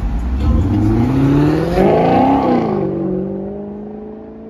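Sports car engine revving hard as the car pulls away. Its pitch climbs to a peak about two seconds in, then drops back and holds while it fades into the distance.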